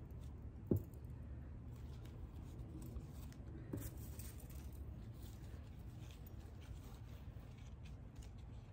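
Faint rustling of leaves and potting soil as hands press plant cuttings into a potted arrangement, over a low steady hum. A sharp knock with a brief ring comes just under a second in as a small glass is set down on the table, and a softer knock follows near four seconds.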